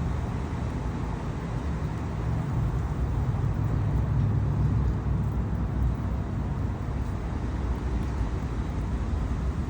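Wind buffeting the microphone: a steady low rumble that swells about three to five seconds in.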